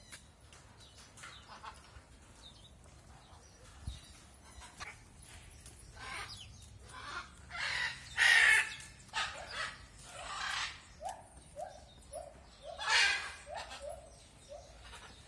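Loud, harsh animal screeches, several in a row, with a quick run of short rising hoots in the later part.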